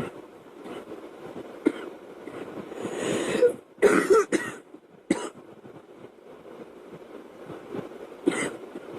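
A girl coughing: scattered single coughs, then a long drawn-in breath and a quick cluster of three or four coughs about four seconds in, and another cough near the end.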